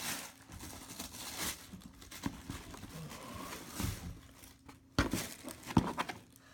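Paper and cardboard crinkling as a Nike shoe box is opened and a pair of sneakers unwrapped, with a few louder knocks and rustles about five seconds in.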